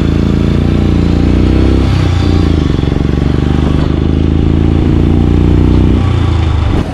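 Motorcycle engine running steadily while riding along a city road, heard from the rider's seat. The engine note dips briefly and picks up again about two seconds in.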